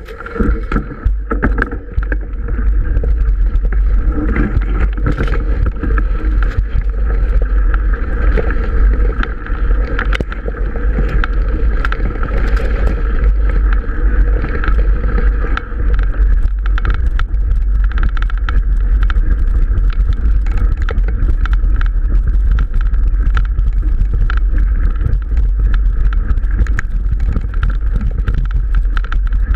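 Mountain bike riding along a rough dirt track through tall wheat, heard from a bike-mounted action camera: a steady low rumble of wind and track vibration on the microphone, with many small clicks and rattles as the bike jolts and stalks strike it.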